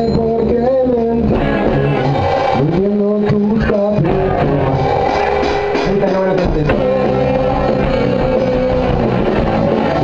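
A rock band playing live and loud, with guitar to the fore and a steady beat, as heard in the rehearsal room.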